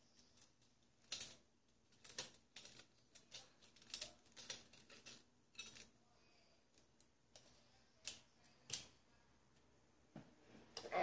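Quiet, irregular clicks and clacks of a butterfly knife comb's handles knocking together as it is flipped and handled, busiest in the first half with two more clacks about eight and nine seconds in.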